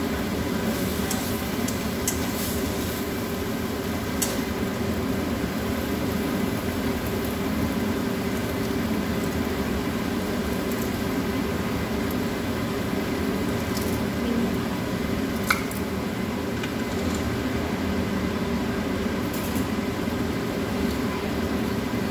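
Sliced meat and onion frying in a nonstick pan: a steady sizzle over a low hum, with a few light clicks and scrapes of the spatula and utensils.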